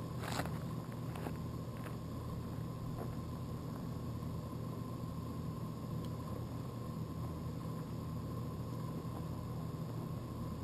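Faint steady electronic hum with a thin high whine and a few soft ticks, from a quadcopter's powered-up brushless camera gimbal holding the GoPro level while the drone rests on the ground.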